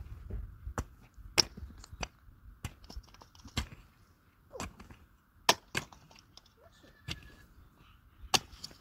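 Irregular sharp clicks and knocks, about one a second and a few of them louder, over a faint steady background hum.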